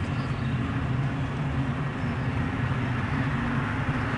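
Steady low rumble with a hiss over it, unbroken throughout.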